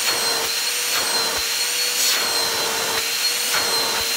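G-Tech handheld vacuum cleaner running steadily at full suction, a high motor whine over rushing air, as its power is tested. A few faint knocks come from it being handled.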